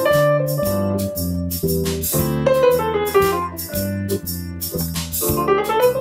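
Instrumental keyboard music with a piano sound: steady bass notes under quick runs of higher notes, falling in the middle and rising near the end.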